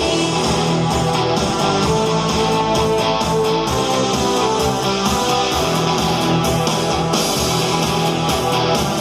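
Pop music with guitar and a steady beat, an instrumental passage without singing.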